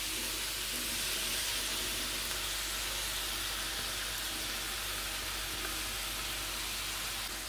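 Diced aubergine and chopped onion frying in oil in a pan, sizzling steadily as the aubergine is pushed into the pan with a wooden spoon.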